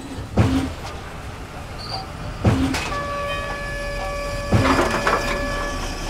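Sharp metallic clanks of railway rolling stock, one about every two seconds. A steady pitched tone like a distant horn is held for a few seconds from about halfway through.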